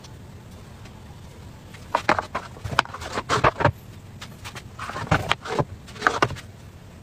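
Kitchen handling noises: after a short lull, a string of light knocks and clicks with brief rustles as a thin crepe is laid on a stack and a plastic electric crepe maker is lifted and tipped over its batter dish.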